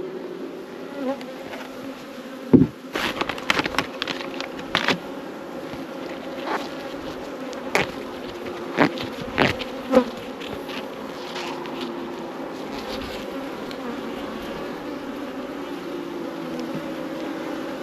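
Honey bees buzzing around open hives, a steady hum throughout. Between about two and ten seconds in come a dozen or so sharp knocks and clicks, the loudest near the start of them, as the hives are worked.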